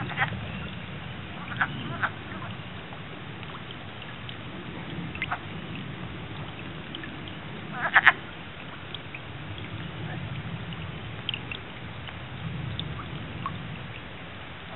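Wood frogs calling in a breeding chorus, with a few short calls standing out over a low continuous murmur. The loudest call comes about eight seconds in.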